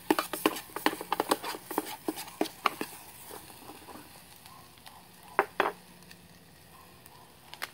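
Metal spoon stirring and scraping diced Spam and egg in a steel canteen cup, quick clinks against the cup for the first three seconds over a faint sizzle of the food frying. About five and a half seconds in come two sharper clacks as the spoon is set down on the wooden board.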